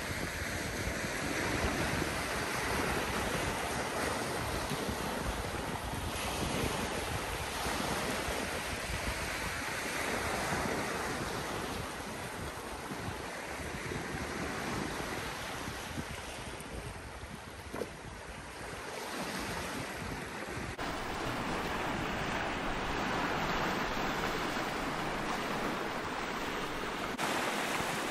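Sea waves washing onto a rocky, pebbly shore, swelling and ebbing, with wind on the microphone.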